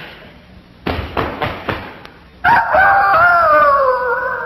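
A rooster crowing: one long cock-a-doodle-doo that slowly falls in pitch, preceded a second or so earlier by a few quick thumps.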